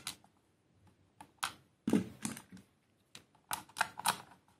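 Small scattered clicks and taps of a screw being set into the screw hole in the plastic base of an ASUS ROG Gladius III Wireless mouse and a screwdriver bit meeting it, with a few quick ones bunched together about two seconds in and again near the end.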